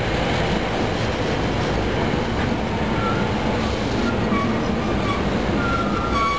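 SEPTA Silverliner IV electric commuter train passing close by: steady rumble of wheels on rail, with a few brief high squeals in the second half.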